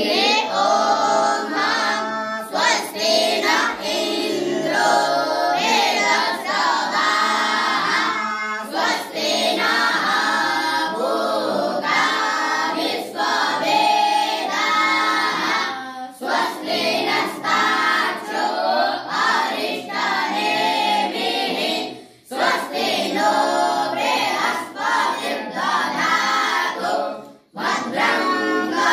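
A chorus of young boys' voices singing together, likely students of a Vedic gurukul, in phrases of several seconds with short breaks between them.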